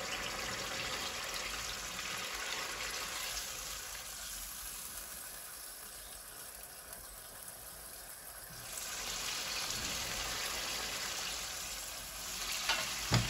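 Turnip and beef curry sizzling and bubbling in a pan over a high flame as it is stirred, its remaining liquid cooking off until the oil separates. The sizzle eases in the middle and comes back, with a couple of sharp spatula knocks on the pan near the end.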